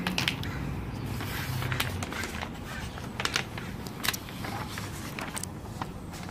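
Sign vinyl and its paper backing crinkling and crackling in short, scattered bursts as a large letter is peeled off the backing and pressed into place by hand. A vehicle engine runs at the start and fades out within the first two seconds.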